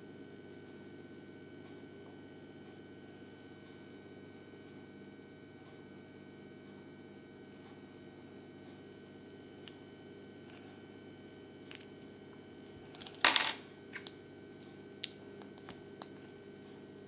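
Small hard plastic toy figure pieces handled and pressed together: faint ticks, then a short burst of sharp clicks about three-quarters of the way through, followed by a few lighter clicks, over a low steady hum.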